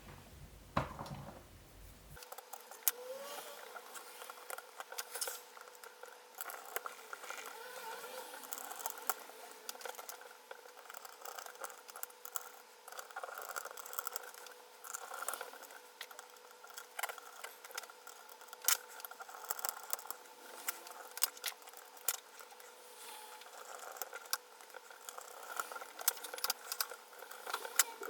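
Small sharp clicks, taps and light metallic rattles of tools and small laptop parts being handled during repair work, over a faint steady hum.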